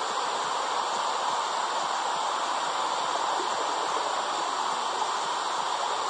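Womb-sound track for soothing babies: a steady whooshing rush like flowing water, even in level, with no clear beat.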